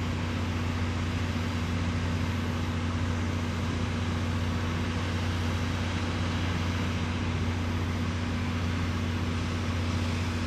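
Steady machine hum with a constant low drone and a second steady tone above it, over an even hiss, unchanging throughout.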